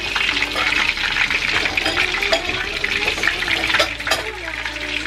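Breaded tonkatsu cutlets deep-frying in oil at 180 °C in a stainless steel pan: a steady sizzle full of small crackles and pops.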